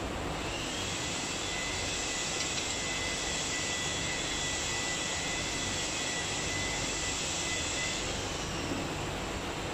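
An electric motor running steadily: a high, even whine over a loud hiss, the whine coming in about half a second in and fading out near the end.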